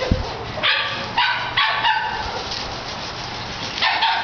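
A Shetland Sheepdog barking in short, quick barks while herding: a run of about four in the first two seconds, then more near the end.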